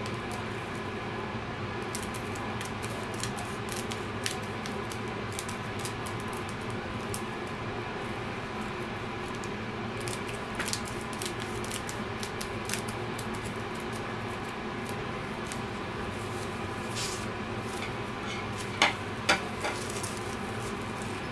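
Scissors snipping through plastic fruit netting in scattered small clicks, with a couple of louder clicks near the end, over a steady background drone.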